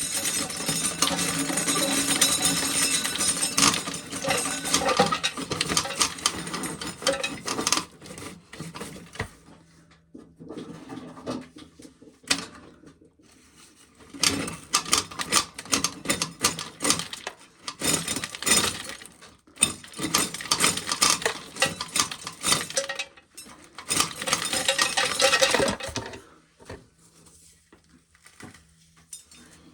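Dried corn being shelled, kernels rattling and clattering against a metal container. It comes in a long dense burst, goes patchier, then picks up again in runs of rapid clatter before quieting near the end.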